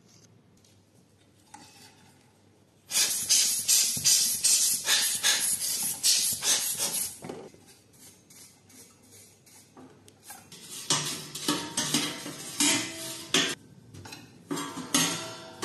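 Stainless-steel parts of a small drum coffee roaster clattering and scraping as they are handled and a brush scrubs the perforated drum. There are two stretches of rapid scraping and rattling, the first starting about three seconds in and the second after a short lull, with some metallic ringing in the second.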